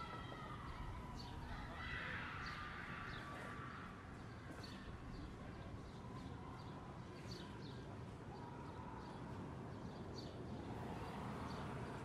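Faint outdoor ambience with a steady low air tone and small birds giving short, high chirps about once a second. A faint drawn-out tone wavers in pitch underneath.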